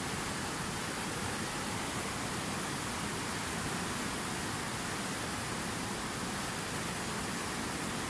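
Fast mountain river rushing through boulder-strewn rapids: a steady, unbroken hiss and rush of white water.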